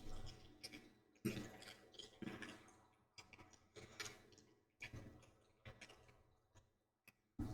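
Near silence with faint, irregular clicks or knocks, about one a second, each fading quickly.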